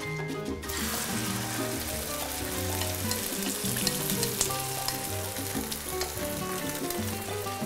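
Beaten egg and minced pork mixture poured into hot oil in a frying pan, starting to sizzle about half a second in and sizzling steadily after that. Background music plays underneath.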